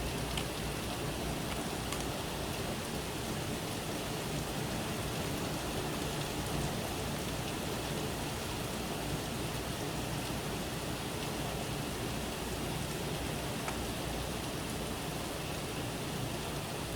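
Steady rain from a tropical storm's outer band, falling and pattering on surfaces, with a few scattered drops ticking.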